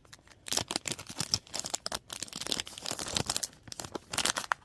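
A foil trading-card booster pack being torn open and its wrapper crinkled by hand: a busy, irregular run of crackles and rustles.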